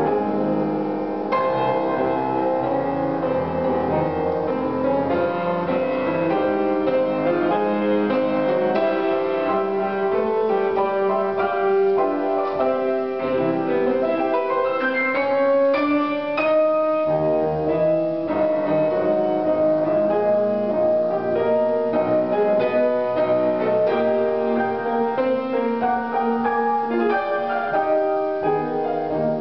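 Grand piano played, a continuous piece of many overlapping notes that runs on without a pause.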